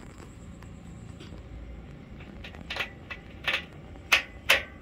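A few short sharp clicks, about five in quick succession in the second half, the last two loudest, over a faint steady background.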